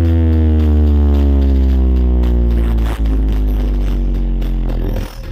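Dance remix music played very loudly through a Brewog Audio sound system. One long bass-heavy synth note is held and slowly falls in pitch, with a brief break about three seconds in, and cuts out near the end.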